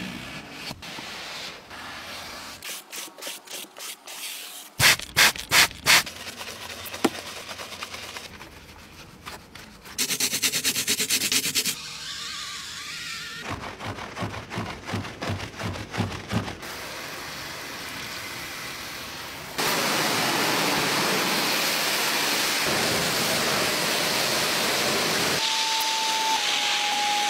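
Cleaning sounds from short car-detailing clips: rubbing and scrubbing with a few loud sharp knocks, then, from about two-thirds of the way in, the steady hiss of a carpet extractor wand sucking suds out of a car floor mat.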